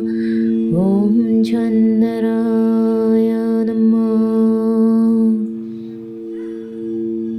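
A wordless voice slides up into a long held, chant-like tone over the steady ringing of singing bowls. The voice stops about five and a half seconds in, leaving the bowls ringing, and one of their tones starts to pulse near the end.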